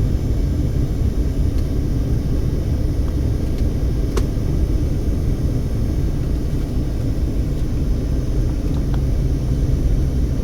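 Steady low rumble of a moving car heard from inside the cabin: engine and tyre noise at a constant pace.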